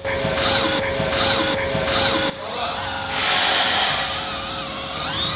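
Handheld power tool spinning a rubber eraser wheel against car paint, rubbing off adhesive residue: a steady motor whine with a scuffing rub over it.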